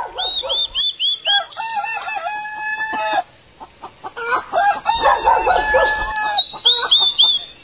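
A rooster crowing twice, each crow rising and then holding a long note. A small bird's quick, repeated high chirps come before and after the crows.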